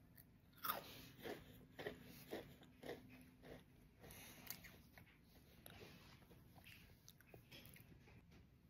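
Faint crunching of a vanilla cupcake Goldfish cracker being bitten and chewed: a sharp crunch about half a second in, then crunches about twice a second that fade to softer, scattered chewing after about three seconds.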